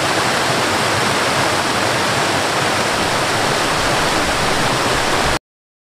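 Waterfalls and the river rapids below them rushing, a steady, even hiss of falling and churning water; it cuts off suddenly near the end.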